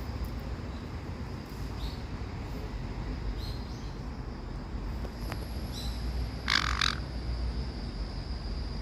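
A pet caique parrot making a few short, faint chirps and then one loud, raspy squawk in two parts about six and a half seconds in.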